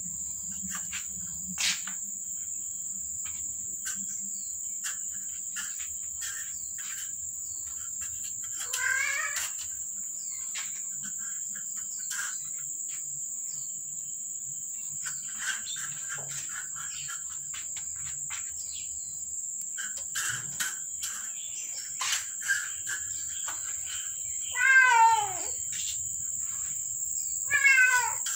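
Domestic cats meowing: one falling meow about nine seconds in and two louder falling meows near the end. Underneath are a steady high insect drone and scattered light taps.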